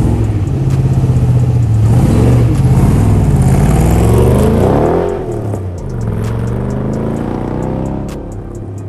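Car engine revving hard, its pitch rising and falling several times, then dropping to a lower, steadier note about five seconds in.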